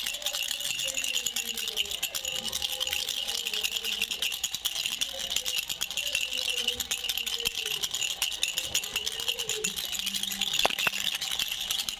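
Baby's toy rattle shaken continuously, a dense, unbroken clatter of small pieces inside it.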